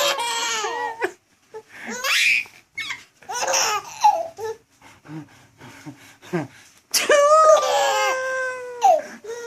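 A baby laughing in high-pitched bursts, a short one at the start and a longer one about seven seconds in, set off by an adult's sneezing.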